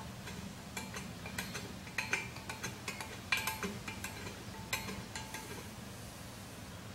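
Irregular light metallic clinks and taps as steel socket head cap screws are handled and threaded in by hand into an aluminum motor adapter plate, the sharpest clinks about two and three seconds in, over a steady low hum.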